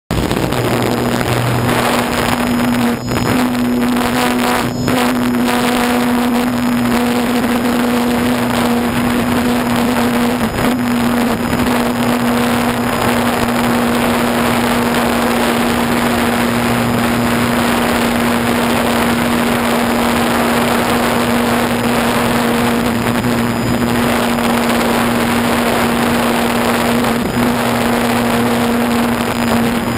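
RC model airplane's motor and propeller running at a steady pitch, heard from the onboard camera, with air rushing over the microphone.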